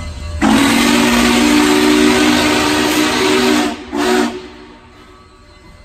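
Steam locomotive's chime whistle, several tones sounding together over a loud rush of steam hiss: one long blast of about three seconds, then a short blast after a brief break.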